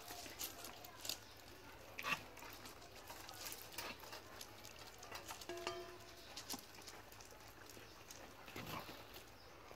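A pack of dogs eating from metal bowls and pans on gravel: scattered clicks and clinks of snouts, teeth and dishes, the loudest knock about two seconds in.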